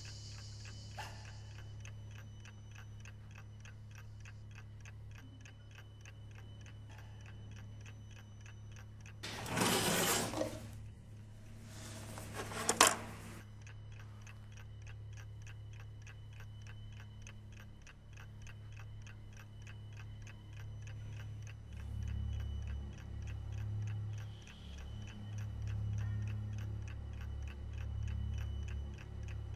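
A clock ticking steadily over a low hum, broken by two loud bursts of noise about ten and thirteen seconds in; the low hum swells near the end.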